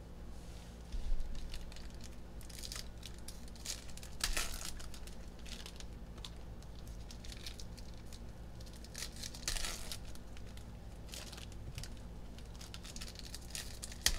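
Foil trading-card pack wrappers (2020 Panini Mosaic hobby packs) crinkling in the hands and being torn open, in short spells of rustling a few seconds apart. The loudest is about a second in.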